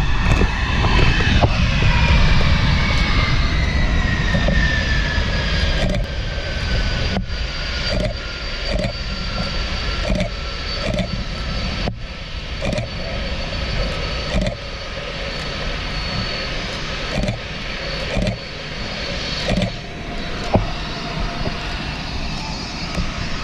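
Jet aircraft engines heard across an airfield, with a whine that falls in pitch over the first several seconds and then holds steady over a low rumble. Short clicks recur about once a second through the middle of the stretch.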